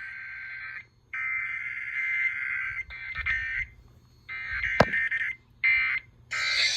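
NOAA Weather Radio SAME alert-header data bursts: buzzy two-tone digital warbling from the receiver's speaker, breaking up and dropping out several times under weak reception. A sharp click comes near the middle, and a broader hiss of static takes over near the end.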